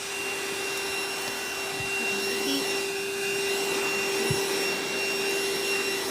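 VacLife cordless handheld vacuum cleaner running steadily: a constant motor whine over the rush of air.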